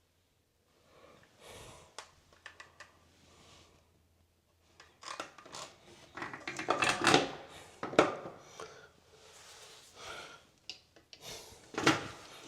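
Hands working bathroom faucet parts on a sink: scattered clicks, rubbing and scraping, with a run of sharp knocks in the middle and another near the end.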